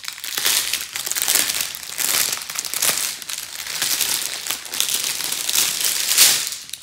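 Plastic packaging crinkling and crackling continuously as it is handled, from the plastic wrap around a bundle of small bags of diamond painting drills; it stops abruptly near the end.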